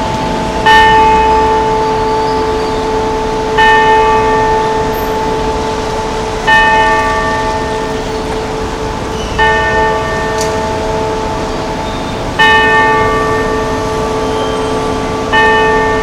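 Wako clock tower bell striking the hour: six single strokes on the same note, about three seconds apart, each left to ring out and fade before the next.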